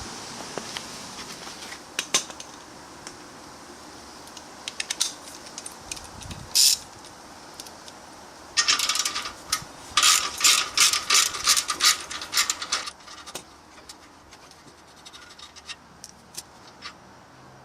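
Small metal parts and hand tools being handled: scattered sharp clicks, then about four seconds of rapid scratchy strokes in the middle of the stretch, metal on metal.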